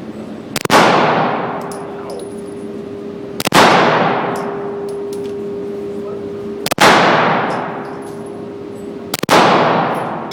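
Four 9mm handgun shots, roughly three seconds apart, each followed by a long echoing decay.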